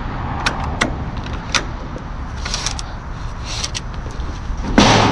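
Metal clicks and rattles of retractable ratchet strap hooks and buckles being handled, over a steady low outdoor rumble. A short, louder scraping rush comes near the end.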